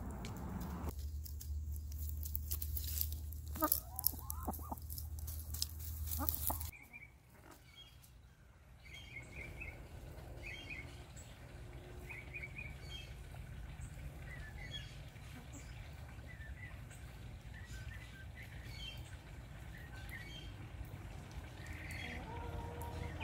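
Backyard hens feeding: beaks click as they peck scraps from a plastic bowl on paving, over a low rumble. After that come scattered soft, short, high chirps and clucks as the flock forages.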